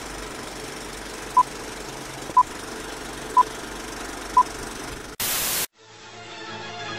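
Old-film countdown leader sound effect: a steady film-projector rattle and hiss with four short high beeps a second apart, then a half-second burst of static that cuts off. Music fades in near the end.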